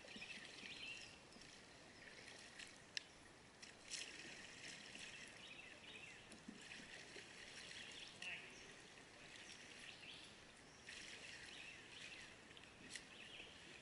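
Near silence: faint outdoor creek ambience from a drifting kayak, with a few soft clicks.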